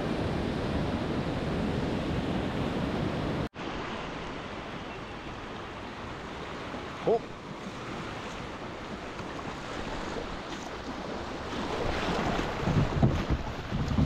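Rushing river whitewater with wind buffeting the microphone. The sound drops out for an instant about three and a half seconds in and comes back quieter, then grows louder and more uneven near the end.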